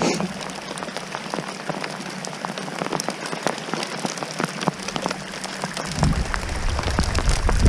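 Rain and hail falling: a steady hiss with many small, sharp ticks of drops and hailstones striking. About six seconds in, a low rumble comes in and grows louder.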